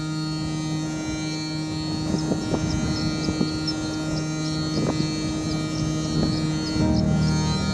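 Ambient music: a steady low drone chord with scattered soft plucked or struck notes and faint high chirps above it; the chord changes near the end.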